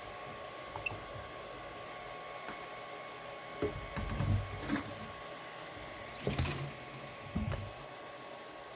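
3D printer running with a steady whine, while it is handled by hand: a click, several knocks and a brief scraping rustle, typical of changing the filament.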